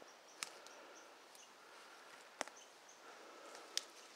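Faint woodland ambience: short high chirps repeat a few times a second over a thin steady high tone, from insects or birds. Three sharp clicks stand out, the loudest sounds.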